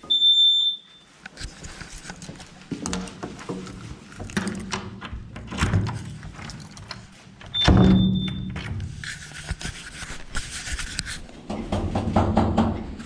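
A smoke detector's high-pitched beep that cuts off about a second in, followed by knocks and handling clatter, one more short beep about eight seconds in, and a hiss lasting about two seconds.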